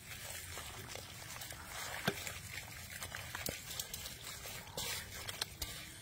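Hands rubbing and massaging a chili and garlic marinade into raw pork legs: wet squishing and slapping with many small clicks and crackles.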